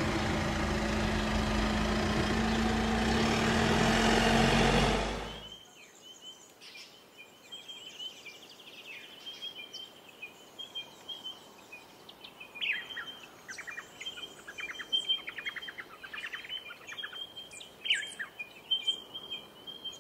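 A pickup truck's engine running with a steady low hum, cutting off abruptly about five seconds in. After it, birds chirp and trill in repeated short high calls.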